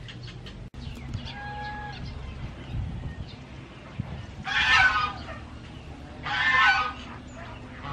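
Poultry calling in the background: two loud harsh calls, each under a second long and about two seconds apart, after a fainter short call early on.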